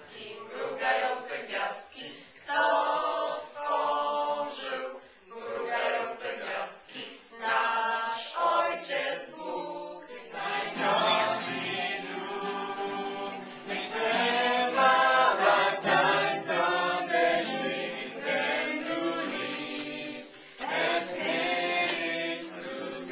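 A group of young people singing together without instruments, in phrases broken by short pauses.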